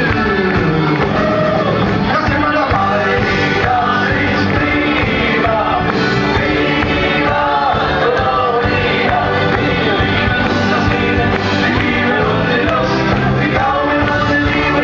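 Live band playing amplified rock-style music with several voices singing, electric guitars, keyboard and drums, steady and loud, in a large hall.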